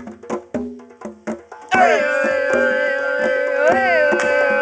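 Music with a quick percussive beat; about two seconds in, a long held pitched note comes in over it and stays on.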